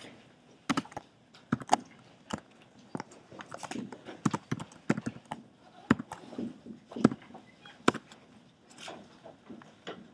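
Dry-erase marker writing on a whiteboard: irregular sharp taps as the tip strikes the board, with short scratchy strokes in between.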